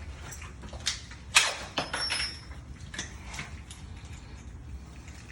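Metal hardware and tools knocking and clicking against a door during lock work. There are a few sharp knocks, the loudest about one and a half seconds in, and a brief metallic ring just after it.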